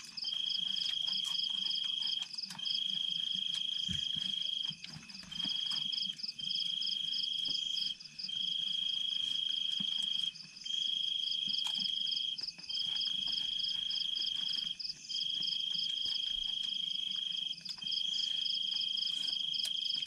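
A night-calling animal trilling: a high, steady tone held in long stretches of one to two seconds broken by short gaps, with a faster pulsing above it.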